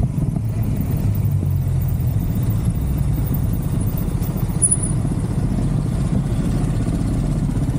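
Motor scooter engines running at low speed, a steady low rumble.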